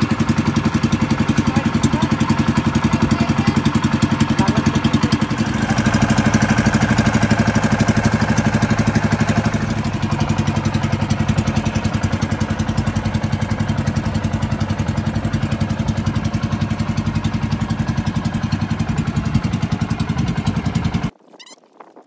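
Boat engine running steadily with a fast, even pulse, rising in level for a few seconds early on and then settling. It cuts off suddenly near the end.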